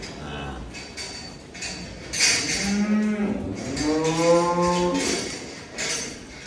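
Cattle mooing: one low moo starts about two and a half seconds in, rises, and holds for a second or so before stopping, amid breathy noise in the shed.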